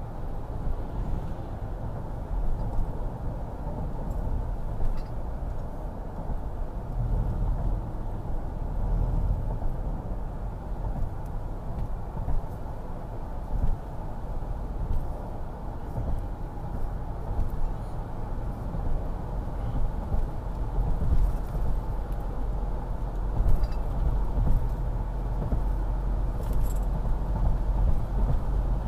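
Steady low rumble of road and engine noise inside a vehicle's cabin at highway speed, with a few faint ticks.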